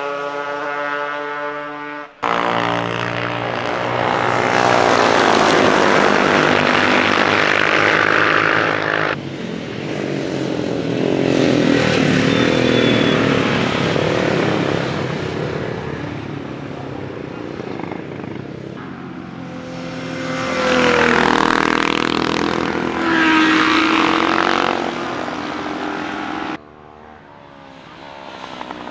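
Classic racing motorcycle engines at high revs as bikes go by on track, their pitch rising and falling through each pass. The sound changes abruptly several times.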